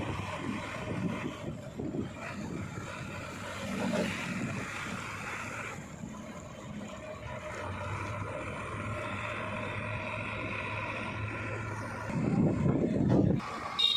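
Diesel engine of heavy earth-moving machinery running steadily, with wind rumbling on the microphone. The low rumble grows louder for about a second near the end.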